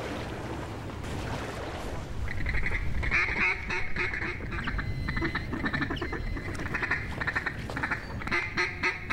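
Splashing water for the first couple of seconds, then runs of rapid mallard quacks, a fast string of calls that breaks off briefly about six and a half seconds in and picks up again near the end.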